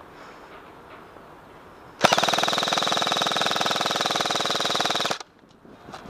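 Airsoft rifle firing one long full-auto burst of about three seconds: a very rapid, even stream of shots starting about two seconds in and cutting off suddenly.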